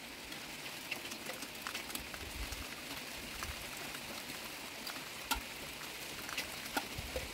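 Steady rain falling on garden foliage: an even hiss with scattered sharp ticks of single drops striking close by.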